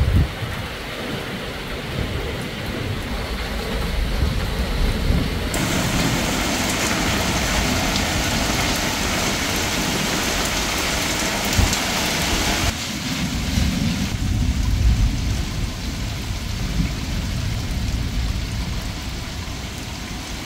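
Rain and gusting wind of a thunderstorm, the wind buffeting the microphone with an uneven low rumble. The rain hiss gets louder and brighter for about seven seconds in the middle, then eases again.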